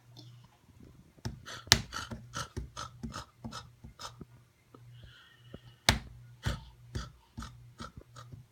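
A run of irregular light taps and knocks, roughly two or three a second, over a steady low hum.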